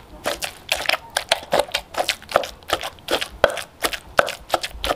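Wooden pestle pounding wet minced featherback fish in an earthenware mortar, in a steady rhythm of short strokes about three to four a second, working the fish into a sticky laab paste.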